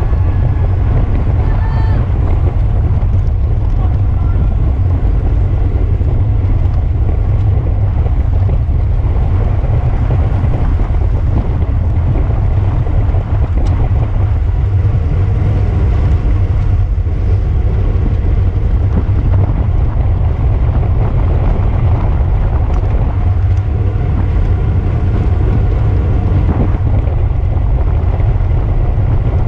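Wind rushing over the microphone of a camera riding along in a bicycle race: a loud, steady rumble that does not let up, with faint voices under it.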